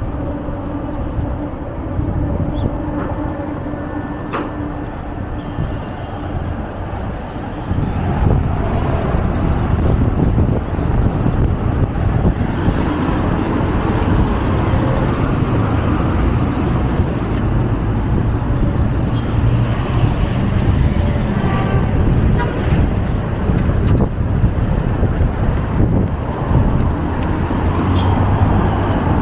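City road traffic: cars and a minibus driving past, a steady rumble of engines and tyres. For the first several seconds it is quieter, with a steady low hum, and it grows louder about eight seconds in.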